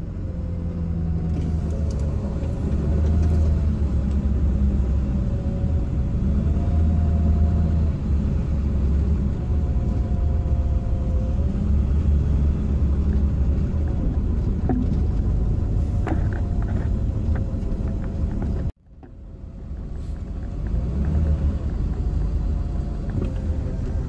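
Large farm machine engine running with a steady, deep rumble under a faint wavering whine. The sound cuts off abruptly about nineteen seconds in and builds back up over the next second.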